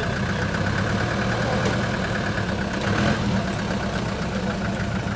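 Engine of a lifted UAZ off-roader idling steadily.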